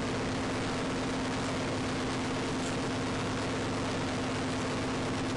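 A fishing trawler's engine running steadily while the boat tows its trawl, heard inside the wheelhouse as an unchanging drone with a low hum over a steady hiss.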